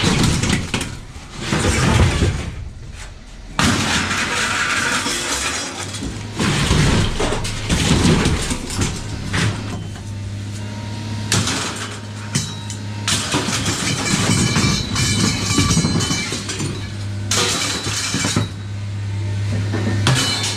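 An engine running at a steady low idle, joined by irregular clattering and crashing of objects being dropped or thrown.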